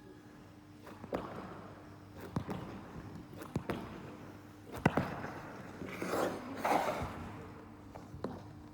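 Figure skate blades on rink ice: scattered sharp clicks and knocks, and a scraping hiss about six seconds in, over a steady low hum.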